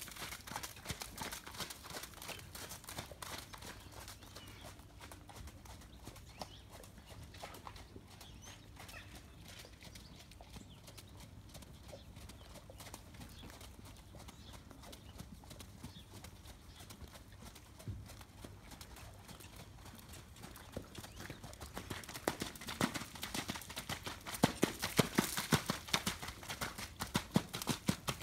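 Hoofbeats of a ridden Connemara mare moving over wet, muddy arena footing. They are clear near the start, grow faint in the middle as she goes to the far side, and come back loud and close over the last several seconds.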